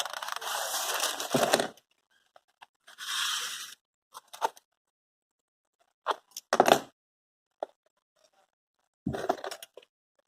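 Phone box packaging being pulled and torn open by hand: a long tearing rustle, a shorter one about three seconds in, then sharper crackles about six and nine seconds in.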